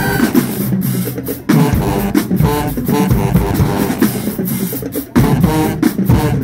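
Marching band playing a loud tune over drums, with two abrupt short breaks in the sound.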